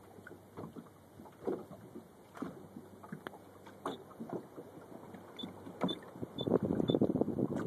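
Small waves lapping and slapping irregularly against the hull of a small boat, growing busier and louder near the end.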